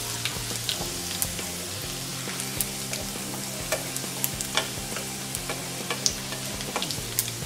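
Green chillies, mustard seeds and sesame seeds sizzling in hot oil for a tadka, with irregular sharp pops and crackles, while a wooden spatula stirs them around the pan.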